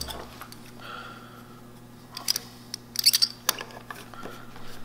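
A few light clicks and taps, bunched about three seconds in: a brass butt hinge being handled and set into its freshly cut mortise in a wood block.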